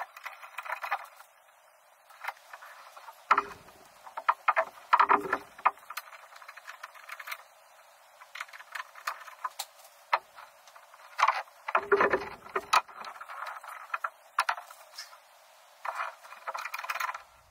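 Sped-up time-lapse audio of a metal roof crossbar being fitted to roof rails: fast, chirpy, irregular clicks, rattles and scrapes of hands working the bars and bolts, with a few louder knocks.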